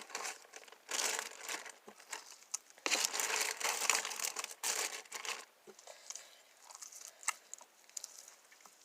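Crinkling and rustling of a plastic bag as homemade slime is handled, in a short burst about a second in and a longer stretch from about three to five and a half seconds in, then a few faint ticks.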